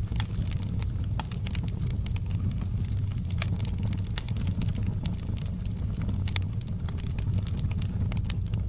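Wood fire burning: a steady low rumble of flame with frequent, irregular sharp crackles and pops.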